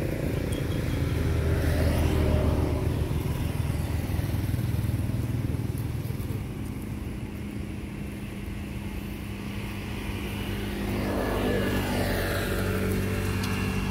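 Steady low hum of a motor vehicle engine running. It is louder in the first few seconds, drops in the middle and swells again about eleven seconds in.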